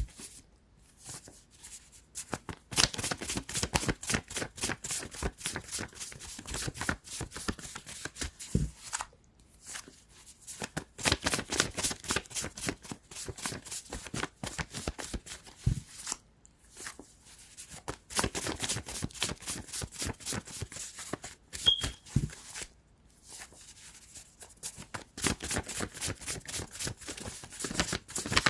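A tarot deck being shuffled by hand: four runs of rapid card flicking and riffling, with brief pauses between them.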